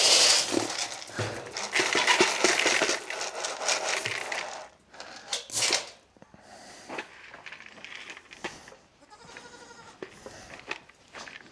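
Goats in a barn: dense rustling and clattering for the first five seconds, then quieter, with a single bleat about nine seconds in.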